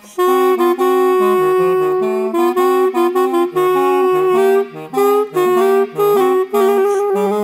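Clarinet playing a blues melody: one long held note for about two seconds, then a run of shorter notes with brief breaks between them, over a lower part moving underneath.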